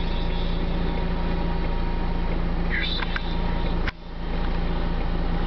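Fendt 926 Vario tractor's six-cylinder diesel engine running steadily under load as it pulls a four-furrow plough through the soil. A short high call and a couple of clicks come a little before halfway, and the sound briefly cuts out and returns just before four seconds in.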